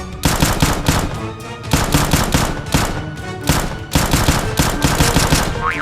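Several rapid bursts of automatic gunfire sound effects, laid over action background music.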